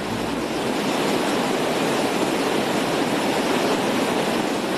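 Floodwater rushing in a torrent over rubble and debris, a loud steady rush.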